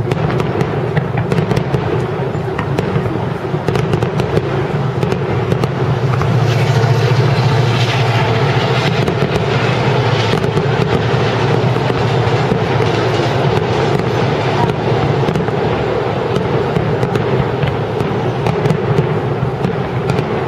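Fireworks display: a dense, continuous barrage of aerial shell bursts, with overlapping booms merging into a steady rumble and crackling throughout. It is heaviest about six to eight seconds in.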